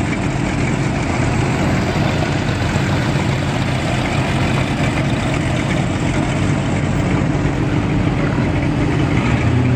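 Engines of several classic cars and hot rods idling and running at low speed as they pull slowly past in a line, a steady low engine sound with no revving.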